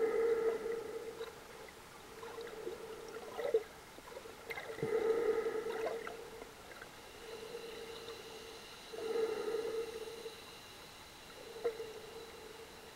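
Underwater sound of a snorkeler breathing through the snorkel: muffled breaths in a slow rhythm, swelling and fading every one to two seconds, with a few short knocks.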